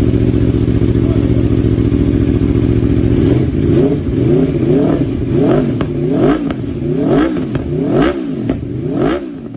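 Aprilia sport motorcycle engine with an Akrapovič exhaust idling steadily, then revved in quick throttle blips, about eight rises and falls in pitch.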